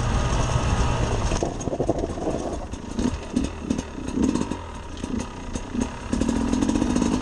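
Sherco SE 300 two-stroke single-cylinder enduro engine under a rider on a rocky trail. It runs steadily, drops back about a second and a half in and then comes in short blips of throttle, and pulls steadily again about six seconds in. Scattered clicks and knocks come from stones and the chassis.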